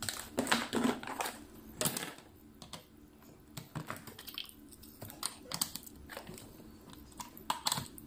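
Handling noise from an electric rotary tool, its cable and flexible shaft being moved about in and against its hard plastic carry case: irregular clicks, knocks and plastic rustling, busiest in the first two seconds and again near the end. The motor is not running.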